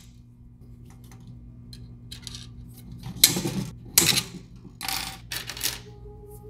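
Stainless steel lure wire (0.062-inch) being cut with diagonal side cutters: two sharp snips about three and four seconds in, then two shorter metallic clatters.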